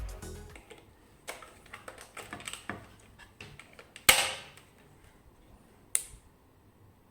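Background music fades out, then comes a string of light, irregular clicks and taps. A loud sharp click with a short ring comes about four seconds in, and another sharp click near six seconds.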